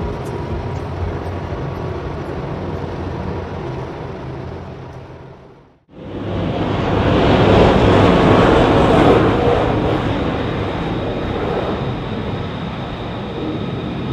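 A sound fades out about six seconds in. Then an F-35B jet starts up loud and sudden, taking off from the carrier's ski-jump: a rush of jet noise that peaks within a couple of seconds and slowly eases off as the aircraft climbs away.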